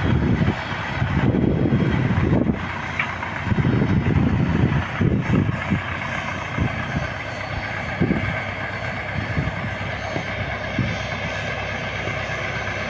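A heavy truck engine running steadily, with uneven low rumbling surges.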